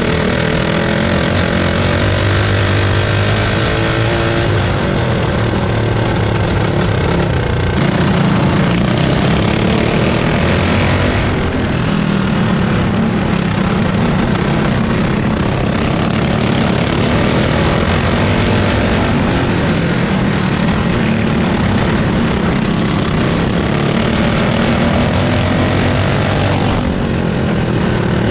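Modified Harbor Freight Predator 212 single-cylinder kart engine, high-compression and cammed, running hard under racing, its revs rising and falling. Other kart engines run close by, and the sound changes abruptly a few times.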